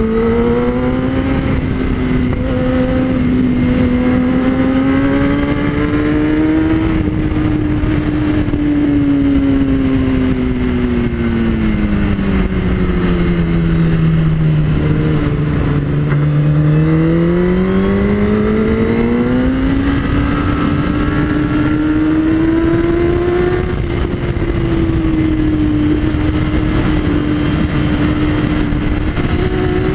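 Kawasaki ZX-10R sportbike's inline-four engine heard onboard at speed, with steady wind rush over the microphone. The engine pitch sinks slowly to its lowest about halfway through as the bike slows into a corner, then climbs again and holds steady near the end.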